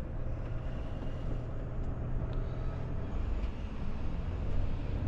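Steady engine drone and tyre noise inside the cab of a Volvo FH460 truck driving on a wet road.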